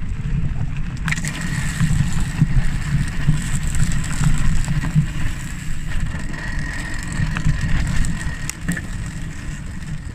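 Knobbly e-bike tyres and wind on the move give a heavy steady rumble. From about a second in, a leafy plant jammed between the front tyre and fender adds a thin continuous scraping and rubbing, with a few clicks: debris caught in the fender, which makes for a very noisy ride.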